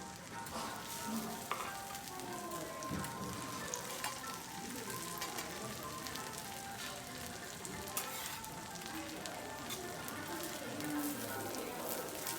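Food sizzling on a teppanyaki griddle: a steady frying hiss with scattered sharp crackles.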